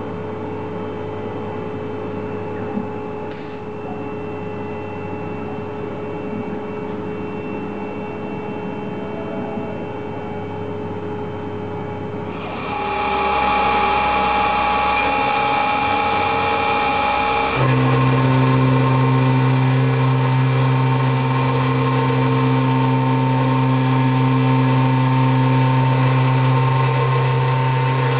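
Denford VMC1300 CNC milling machine running: steady hum and whine of its spindle and stepper-motor axis drives as an end mill cuts aluminium plate. The sound gets louder about halfway through, and a strong lower hum comes in a few seconds after that.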